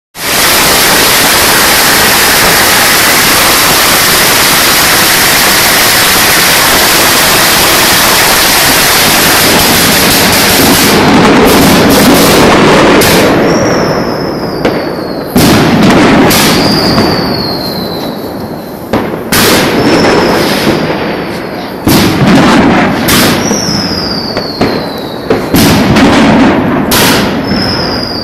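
Fireworks going off at close range: for about the first ten seconds a dense, unbroken crackle of firecrackers and spark fountains, then separate sharp bangs a few seconds apart as aerial shells go up, several of them trailed by a high whistle that falls in pitch.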